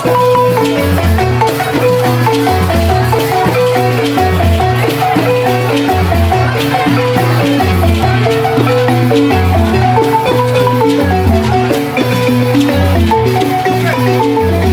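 Senufo balafon music: quick runs of short wooden-bar notes over a repeating low bass line, played continuously.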